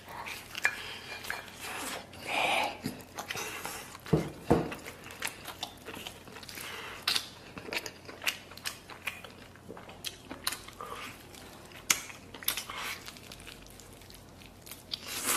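Close-up eating sounds of someone gnawing and chewing a tough piece of bone-in beef held in the hands: bites, chewing and mouth clicks, with a few sharp clinks of cutlery or a bowl.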